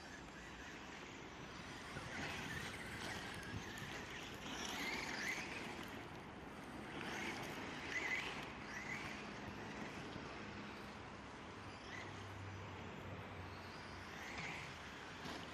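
Electric motors and gears of 1/10-scale Traxxas RC trucks whining in short rising and falling bursts as they speed up and slow down across a dirt track, several times over, with a low hum about twelve seconds in.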